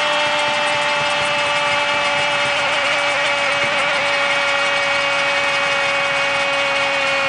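Arena crowd cheering a goal, with a long steady horn note held over the noise right through, its pitch sagging slightly.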